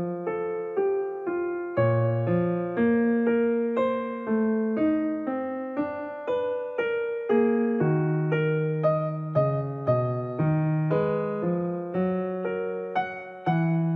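Background piano music: a gentle, unhurried melody of single notes over held chords, about two notes a second.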